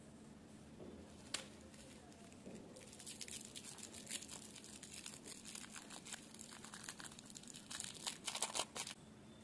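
Foil candy wrappers crinkling and crackling as gloved fingers twist and peel them open. The crinkling thickens about three seconds in and is loudest in a quick run of crackles near the end.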